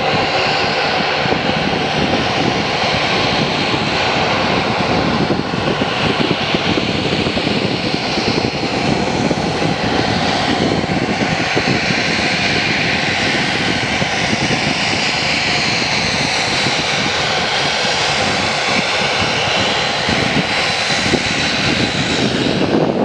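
Fokker 50's twin turboprop engines, Pratt & Whitney Canada PW100-series, running steadily while the aircraft taxis and turns to line up on the runway for takeoff. A thin, steady high whine sits over the propeller and engine noise.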